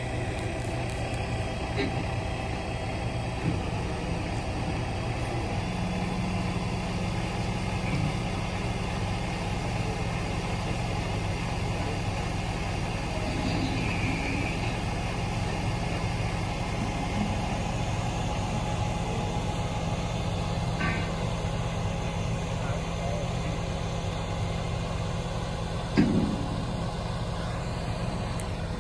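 Mobile crane's diesel engine running steadily during a lift, with one short knock near the end.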